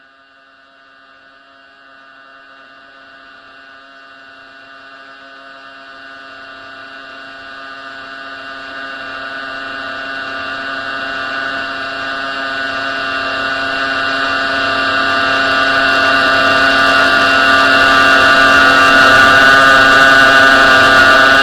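An electronic drone of many steady tones held together, like a heavy hum, swelling steadily louder the whole way through, with a hiss building on top toward the end.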